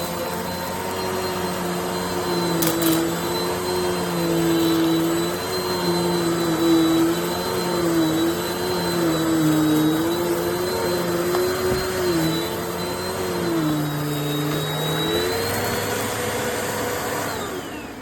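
Dirt Devil Multi-Surface+ upright bagless vacuum cleaner running, a steady motor hum with a high whine, both wavering slightly in pitch. Near the end the motor winds down, its whine falling.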